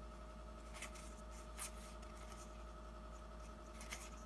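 Faint swishes of trading cards being slid off a hand-held stack and turned over, a few soft strokes spread out, over a steady faint electrical hum.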